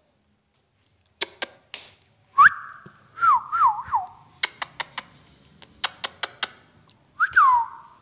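Rose-ringed parakeet clicking and whistling. A few sharp clicks lead into whistles that rise and then fall in pitch, three times over. A run of about ten quick clicks follows, and one more whistle falls away near the end.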